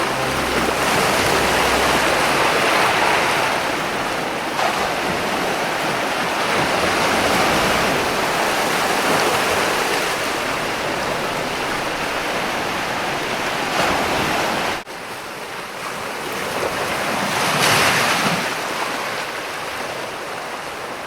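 Ocean waves breaking and washing against rocks, a steady surf that swells and eases. The level drops suddenly about 15 seconds in, then another wave surges up near 18 seconds.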